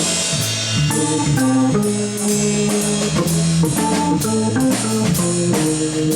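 Live jazz organ trio playing: the organ moves through a line of held notes over a drum kit keeping time with steady cymbal strokes.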